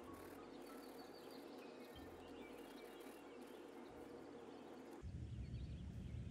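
Faint, soft background music with high twinkling notes over a low sustained tone that shifts every couple of seconds. About five seconds in, a louder, deeper low passage takes over.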